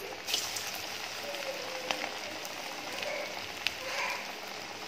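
Soya vada deep-frying in hot oil in a kadai: a steady sizzle with a few sharp crackling pops.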